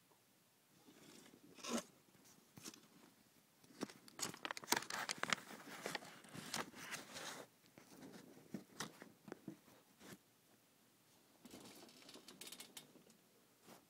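Handling noise: the phone camera scraping and crackling against the clear plastic enclosure and gravel in irregular spurts, loudest in the middle, with quiet gaps between.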